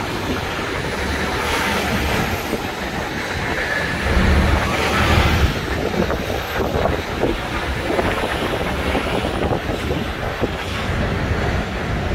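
Steady city traffic noise and the rumble of a moving open-top double-decker bus, heard from its upper deck. The low rumble swells briefly about four seconds in.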